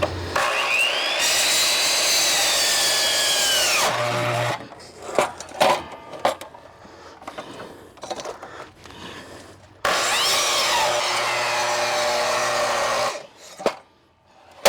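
Ryobi 12-inch sliding compound miter saw cutting into a palm log in two runs of about three to four seconds each. The motor's whine sags and falls in pitch as the blade bogs down in the wood. Between the cuts there are knocks and clatter of the log being handled.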